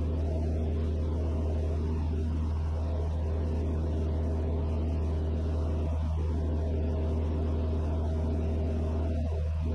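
Van's RV-6A's piston engine and propeller running steadily at cruise power, a constant low drone heard from inside the cockpit.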